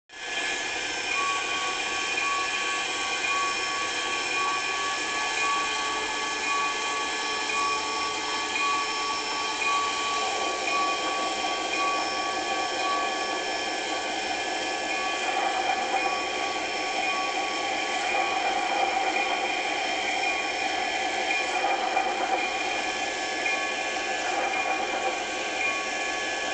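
Steady mechanical whirring like a small electric motor running, with several fixed whining tones over a hiss. The tone shifts a little about ten seconds in.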